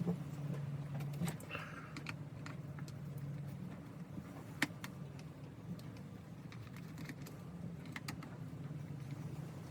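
Scattered light clicks and taps of tools and small plastic and metal parts being handled while a chainsaw is taken apart to replace its carburetor, with one sharper click about halfway through, over a steady low hum.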